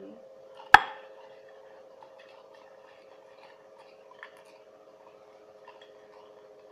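A sharp knock about a second in, then faint rustling and small ticks as a paper lot is fished out of a container, over a steady background hum.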